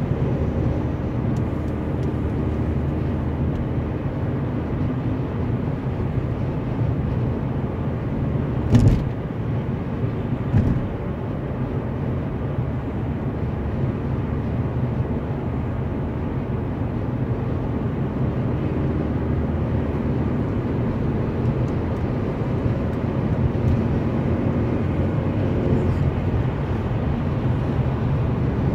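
Steady road and engine noise of a car driving on a motorway, heard inside the car's cabin, with two short thumps about nine and ten and a half seconds in.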